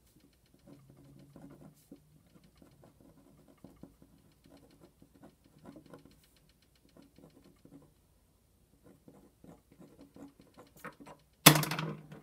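A felt-tip marker writing on paper: faint, quick, irregular scratching strokes. Near the end, a brief loud handling noise.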